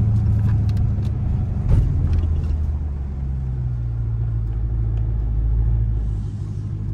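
Straight-piped 5.7-litre HEMI V8 of a 2021 Dodge Durango R/T cruising, a steady low exhaust drone heard from inside the cabin. A brief thump comes a little under two seconds in.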